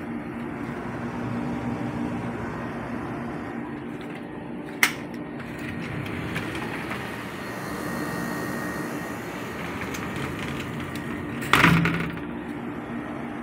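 Kolin window air conditioner running with a steady hum. A sharp click about five seconds in, and a sliding glass panel knocking shut near the end.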